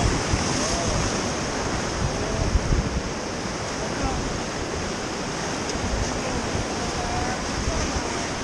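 Steady rush of Ganges river water around a raft, with faint voices in the background.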